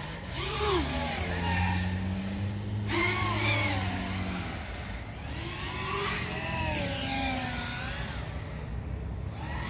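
FPV freestyle quadcopter's motors and propellers whining, the pitch sweeping up and down several times as the throttle changes, over a steady low hum.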